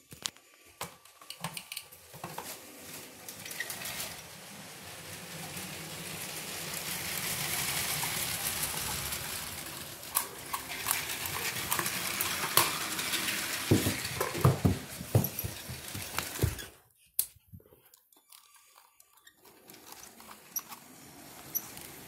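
Motorised Lego train running on plastic track, a steady whirr with scattered clicks and knocks, mixed with handling of the handheld camera. It drops away suddenly about 17 seconds in.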